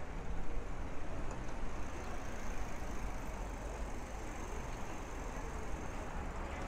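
Steady outdoor street noise heard from a moving bicycle: a low rumble of wind and rolling, with distant traffic in it.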